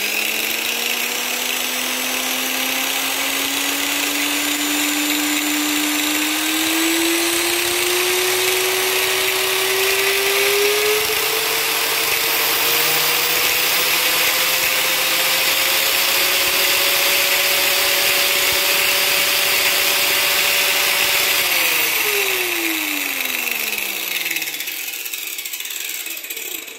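Steinhaus Pro AG 900V variable-speed angle grinder running free, its whine rising slowly as the speed dial is turned up from minimum. It holds steady at top speed for a few seconds, then falls away as the grinder winds down to a stop near the end.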